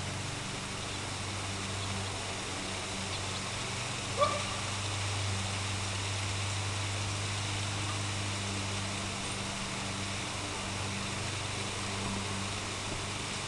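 Steady low hum over an even background hiss, with one short chirp about four seconds in. The siren is not sounding.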